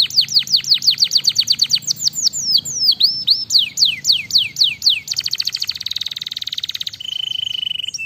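Domestic canary singing: a run of quick downward-sweeping whistled notes that speed up, then a fast rattling trill about five seconds in, ending on a steady held whistle.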